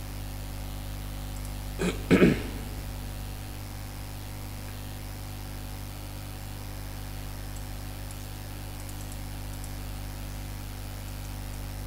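Steady electrical hum and hiss on a recording microphone, broken about two seconds in by one short, loud vocal sound.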